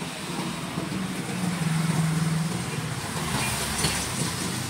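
A motor vehicle's engine running close by, swelling to a low hum in the middle and then fading as it passes.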